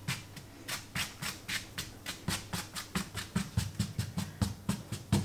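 A bare hand brushing loose flour off rolled pastry dough and a stone-look benchtop in quick sweeping strokes, about four a second.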